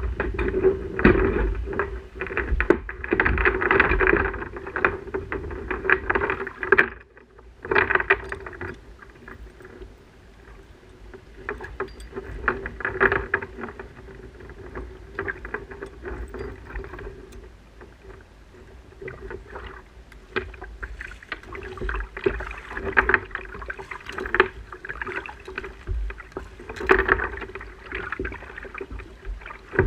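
Kayak under way on the water: irregular splashing and sloshing against the hull in uneven flurries, over a steady low hum.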